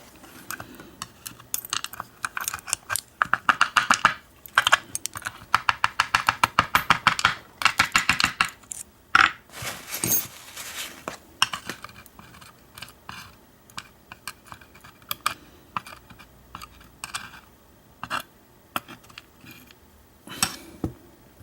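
Small metallic clicks and rattles from a padlock being worked on by hand with tools. There is a dense run of fast, even clicking for about five seconds early on, then scattered single clicks.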